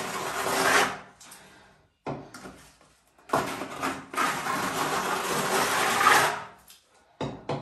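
Scraping of a plastering trowel spreading render over a wall. One long stroke lasts about three seconds, with shorter scrapes before and after it.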